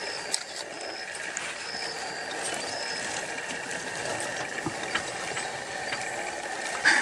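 Porcupine rattling its raised quills in a steady, dry clatter as a defensive warning against an attacking leopard; a brief louder noise comes just before the end.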